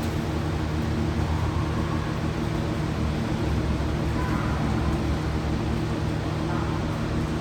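A steady low mechanical hum with a noisy hiss over it, holding an even level throughout.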